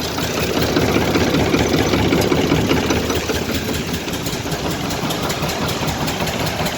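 Ford 4000 tractor engine running steadily, a little louder for the first few seconds as the hydraulic lift raises the rear three-point linkage.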